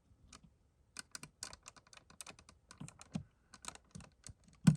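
Plastic dashboard vent knob and vent parts of an Aston Martin DB11 being handled and fitted, making a string of small, irregular clicks and taps, with a louder click near the end as the knob is pushed on.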